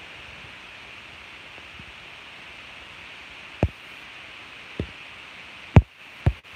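Steady hiss with four short, dull knocks in the second half, the loudest near the end: bumps from the recording device being handled.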